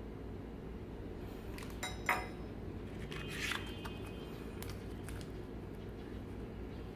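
A couple of light clicks about two seconds in, then a brief scrape, from small hard objects being handled, over a steady low hum.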